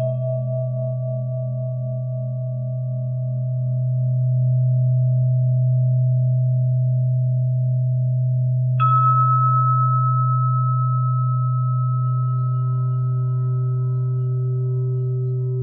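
Meditation tone music: a steady low hum with pure ringing tones over it. One tone is struck just at the start, a higher one is struck about nine seconds in and rings out slowly, and a lower tone swells in near the end.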